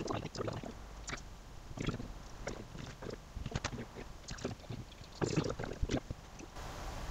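Irregular light clicks and taps, a few every second, with a short cluster of them about five seconds in.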